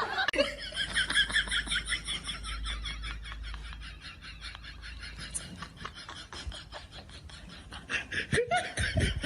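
High-pitched laughter in a long run of rapid, evenly repeated laughs, growing fainter as it goes on.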